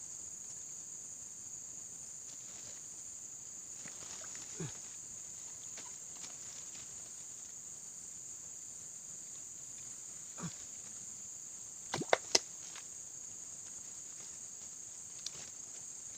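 Steady high-pitched chorus of crickets and other insects, with a few sharp clicks scattered through it; the loudest are a close pair about twelve seconds in.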